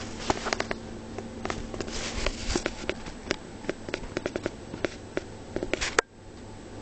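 Handling noise from a hand-held camera: irregular clicks, knocks and brief rustles over a steady low hum, cutting off abruptly about six seconds in.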